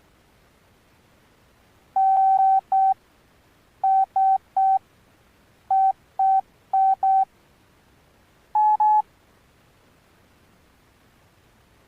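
Alcatel OneTouch Retro 2017B flip phone's speaker playing a pattern of short, single-pitch electronic beeps in quick groups for about seven seconds, the last two beeps a little higher. It sounds like a simple beep ringtone or alert tone.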